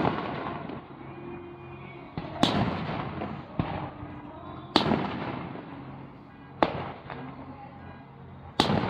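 Aerial firework shells bursting overhead: five sharp bangs a second or two apart, each followed by a fading rumble and crackle.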